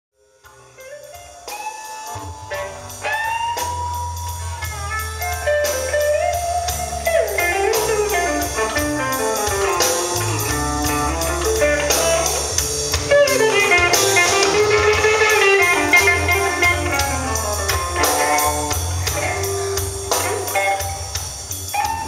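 Blues band music: guitar lines with bent notes over bass and drum kit, fading in over the first couple of seconds.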